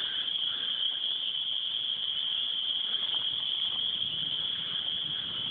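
A steady, high-pitched chorus of crickets calling.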